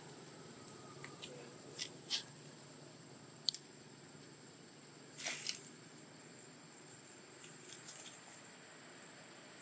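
A few short, faint clicks and ticks scattered over a low, steady hiss, with a small cluster about halfway through.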